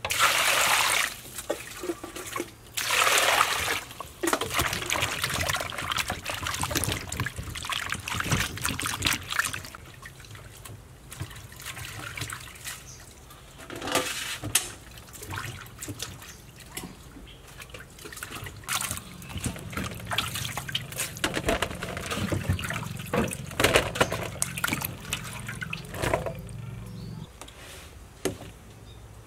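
Vegetables being washed by hand in a metal basin of water: splashing and sloshing, with water running and dripping off them back into the basin. The loudest splashes come about a second in and again about three seconds in.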